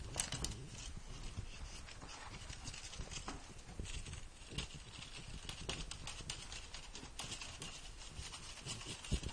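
Irregular light clicks and taps from a cat at play, batting at a wand toy on a rug and bare floorboards, with a louder knock near the end.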